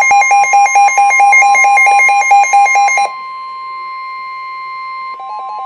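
Emergency Alert System alarm tones for a severe thunderstorm warning. A loud electronic tone flips rapidly between a low and a high pitch for about three seconds, then gives way to a steady single-pitch alert tone. Near the end a fainter quick two-pitch beeping sounds over the steady tone.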